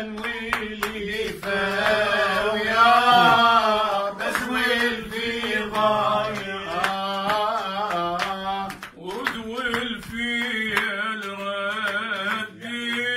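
A man singing an Iraqi maqam in maqam Saba: long, wavering melismatic phrases in three stretches. A steady low tone runs underneath, and a few hand claps sound in the first second.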